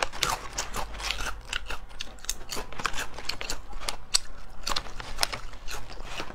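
Foil snack bag of thin yam chips crinkling as it is opened and rummaged through, in a rapid string of sharp crackles, with crisp crunches as a chip is bitten.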